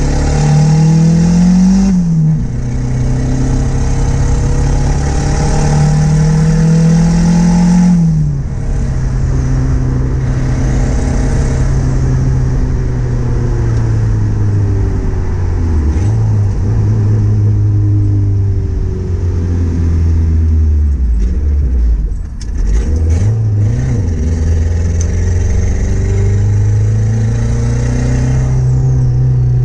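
Turbocharged Honda D16Z6 1.6-litre four-cylinder heard from inside the car while driving. It pulls hard through two gears, with the pitch rising and then dropping at shifts about two and eight seconds in. It then cruises with a couple of brief lift-offs, and a quick run of sharp clicks about twenty-two seconds in.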